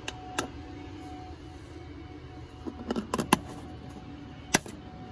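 Plastic motor oil jugs and their screw caps being handled: a few sharp plastic clicks and knocks, two at the start, a quick cluster about three seconds in, and a single loud one near the end.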